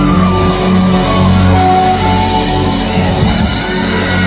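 Church band music: held chords over a steady bass note, with the chord notes changing every second or so.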